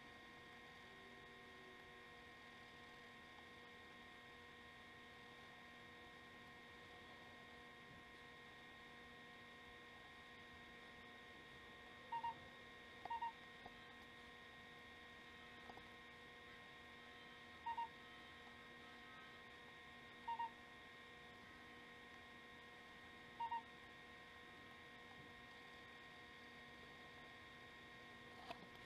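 Faint steady electrical hum with a high whine, broken about halfway through by five short electronic beeps spaced a few seconds apart.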